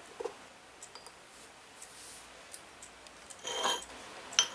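Small ceramic toy dishes knocking together: a little spoon ticks against a miniature plate, then about three and a half seconds in one small plate is set onto another with a short scraping clink, followed by a sharp tick near the end.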